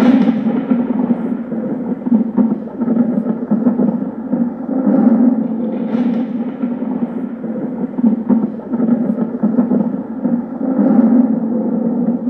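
Loud, low rumbling sound effect that swells and falls, with a brighter whoosh at the start and again about six seconds in.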